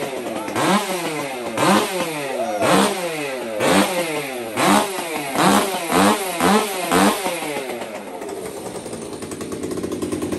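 Brand-new Stihl MS 362 C two-stroke chainsaw engine revved in short throttle blips about once a second, coming quicker toward the end, then settling to a steady idle about eight seconds in. This is the saw's first run: revving it and leaving it to idle through a tank is its break-in.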